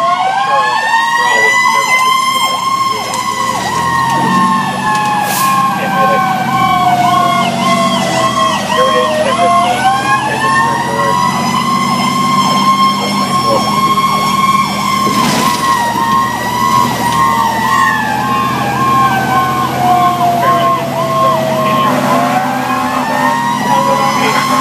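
Fire engine sirens heard from inside the cab on an emergency response: a wail that rises and then slowly falls over several seconds, repeating, overlaid with a fast repeating siren cycle. The truck's engine runs steadily underneath.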